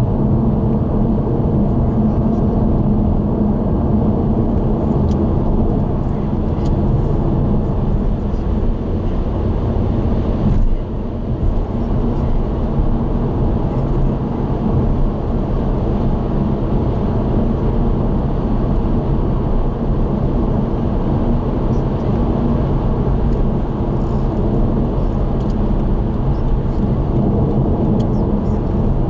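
A car cruising at expressway speed, heard from inside the car: a steady rumble of engine and tyre road noise with a low hum. It dips briefly about a third of the way in.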